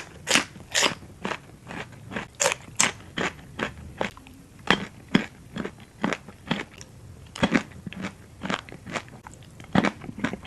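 Close-up crunchy chewing of tam pa thale, a Thai spicy pounded salad with seafood and raw vegetables. Sharp crunches come in an even rhythm of about two a second.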